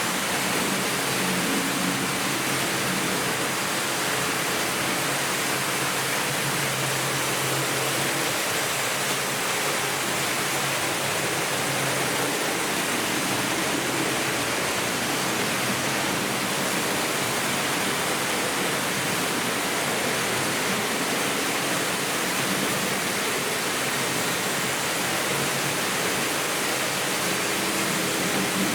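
Several Märklin H0 model trains running at once, making a steady rushing noise of metal wheels rolling on the track, with a faint hum from the locomotives' electric motors.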